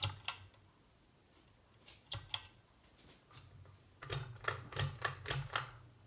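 Sharp clicks: a pair at the start, a pair about two seconds in, one more a second later, then a quick run of about six in the last two seconds, over a low hum.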